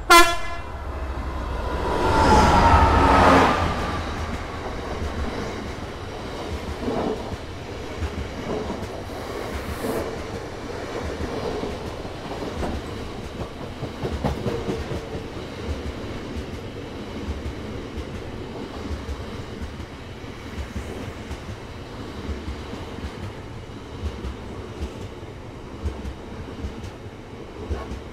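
Freight train of Drax biomass hopper wagons running through the station: a brief horn blast right at the start, the locomotive passing loudest about two to three seconds in, then a long rake of wagons rumbling past with a steady clickety-clack of wheels over rail joints.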